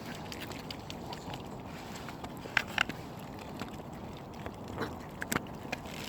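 Waterfowl bills snapping at hand-fed bread: a few sharp snaps, two close together about two and a half seconds in and a few more a little after five seconds, over a steady background rush.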